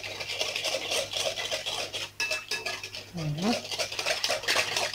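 Metal utensil stirring fast in a glass bowl, with rapid clinks and scrapes against the glass, as the liquids and sugar for a brioche dough are mixed together.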